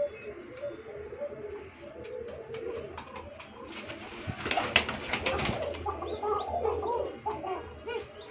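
Domestic pigeons cooing over and over, the calls growing louder a little past the middle. About halfway through comes a short burst of rustling and clicks.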